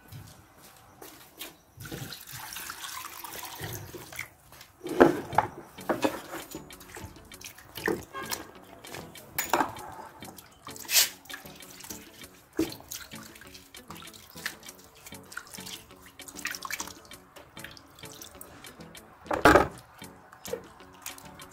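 Water splashing and sloshing as hands wash peeled garlic cloves and onions in a clay bowl, with irregular splashes and small knocks.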